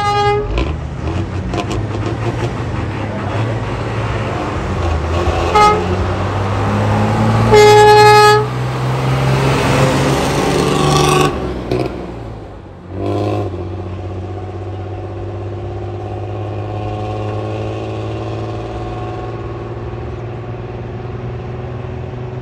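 Coach bus engine running hard with its exhaust loud, the horn sounding in short blasts at the start and about five seconds in, then one longer, louder blast about eight seconds in. The engine noise drops away around twelve seconds, then runs on steadily, its pitch slowly rising as the bus accelerates away.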